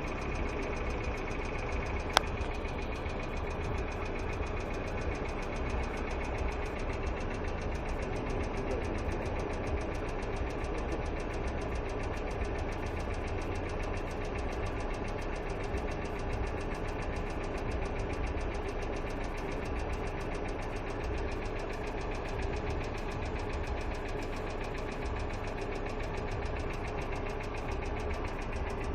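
Hyundai Accent II engine idling with a fast, steady ticking from its hydraulic lifters, the knock of lifters not taking up valve lash. A single sharp click about two seconds in.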